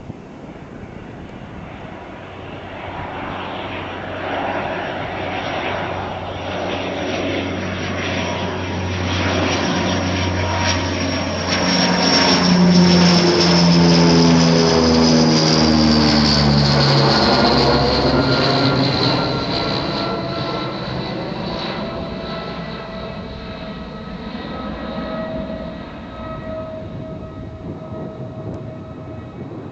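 Hawker Siddeley Andover C1's twin Rolls-Royce Dart turboprop engines flying past overhead: a high turbine whine and propeller drone build to their loudest about halfway through, the whine dropping in pitch as the aircraft passes, then fading as it flies away.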